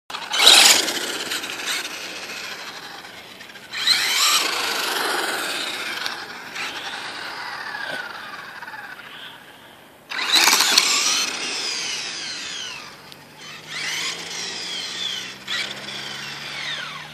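Traxxas Mini E-Revo VXL brushless RC truck accelerating hard in about five bursts. Each burst of motor whine slides down in pitch as the truck coasts, with tyre noise on pavement. The loudest bursts come at the start and about ten seconds in.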